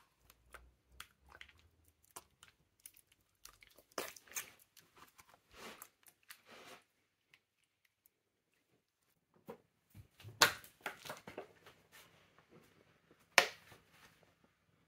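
Wet squelching and squishing of mashed banana being squeezed and kneaded between bare hands, in irregular bursts. There is a lull in the middle, and the loudest squelches come about ten and thirteen seconds in.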